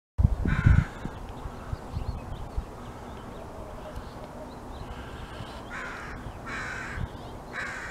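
Crow cawing: one harsh caw near the start, then three more in quick succession near the end.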